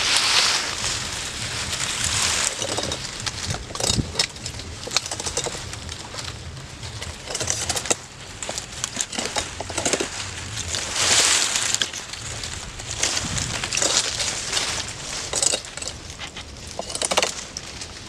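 Date palm fronds rustling and crackling as thorns are cut from them with a small sharp hand blade: repeated sharp clicks and snaps among swishing leaf noise that swells every second or two.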